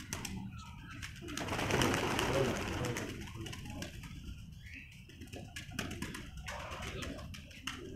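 Domestic pigeons cooing, with a louder rushing noise from about one to three seconds in and scattered short clicks.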